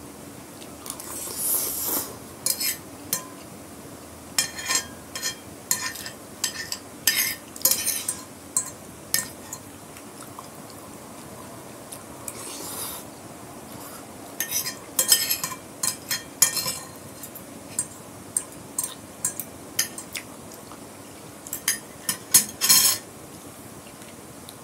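Metal spoon and fork clinking and scraping against a glass plate in irregular bursts as the last noodles are gathered up. A final cluster of clinks comes near the end as the cutlery is set down on the plate.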